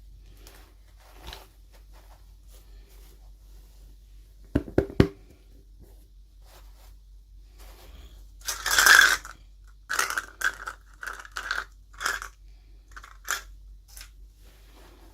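Toy packaging being handled and opened by hand: a quick run of three sharp clicks about a third of the way in, then a louder crinkling, tearing rustle just past the middle, followed by scattered smaller rustles and clicks.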